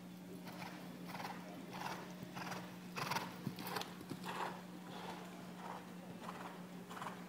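A horse's hoofbeats in a steady, regular rhythm, about one beat every two-thirds of a second, loudest around the middle, over a steady low hum.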